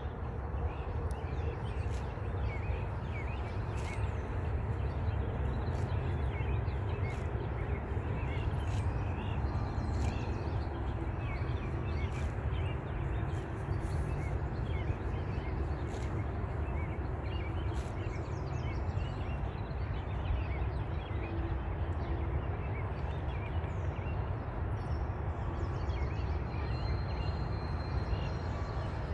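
A horse grazing, tearing off mouthfuls of grass with a crisp rip every second or two, over a steady low rumble and faint bird chirps.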